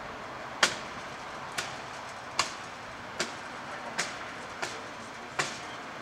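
A firefighter's hand tool striking the charred deck boards: seven sharp blows, roughly one every 0.8 seconds, over steady background noise.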